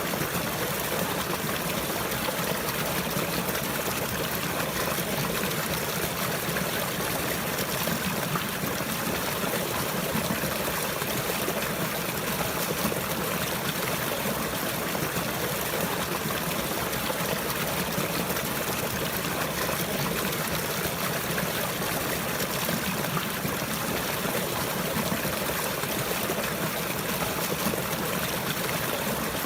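Running water, a steady stream trickling and splashing without pause.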